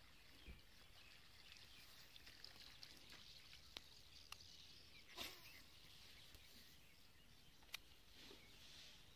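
Near silence: faint outdoor ambience with a few short, sharp clicks, the strongest about five seconds in.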